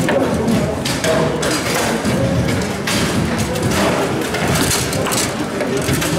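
Foosball being played: the ball and the rod men knocking and thudding against each other and the table's walls in quick, irregular strikes, over a steady background din of a busy hall.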